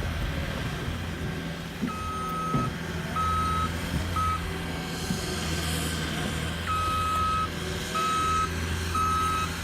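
Reverse alarm on a work vehicle beeping about once a second, pausing briefly midway, over the vehicle's engine running steadily.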